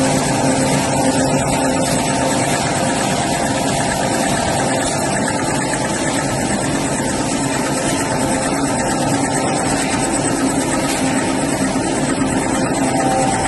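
Toilet paper and kitchen towel converting line with nested embossing lamination, running steadily: a continuous machine noise with several constant tones and no change in level.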